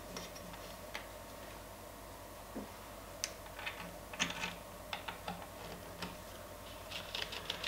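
Scattered light clicks and ticks of a hand screwdriver turning a screw through a 3D-printed plastic strain-relief clamp, with the plastic parts and cable being handled.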